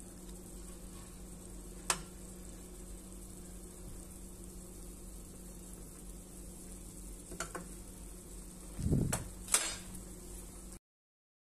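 Pot of water boiling steadily with bagels in it, over a steady low hum, while a metal slotted spoon clinks against the pot: once about two seconds in, again past the middle, and several knocks near the end. The sound then cuts off suddenly.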